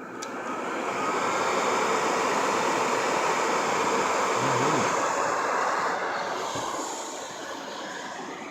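Supermicro SuperServer 6014V-T2 cooling fans spinning up to full speed with a loud rushing whir as the server gets power, holding for about five seconds, then winding down near the end.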